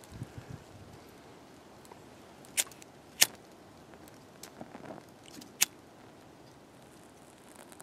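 Disposable flint lighter being struck: three sharp clicks of the spark wheel, two close together about two and a half to three seconds in and a third a little before six seconds, with faint handling noise between.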